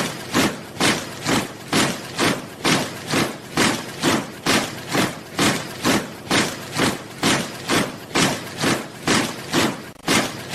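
A body of soldiers marching in step: the boots land together in crunching footfalls, a steady cadence of a little over two steps a second.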